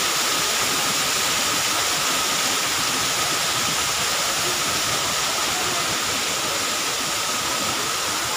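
Man-made waterfall pouring down a rock face: a steady, even rush of falling water.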